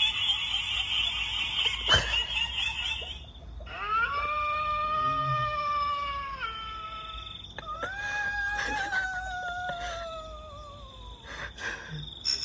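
Eerie 'ghost' sound effects played from a smartphone's speaker held close to the microphone. A harsh, jittery rattling noise cuts off about three seconds in. It is followed by two long wails, the second rising briefly and then sliding slowly downward.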